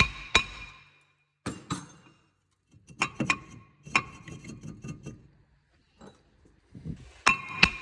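Hammer blows on a Mercedes-Benz C220's rusted cast-iron brake disc, knocking it loose from the hub. The strikes come in quick pairs, each followed by a bright metallic ring, with some rattling of the disc between the blows.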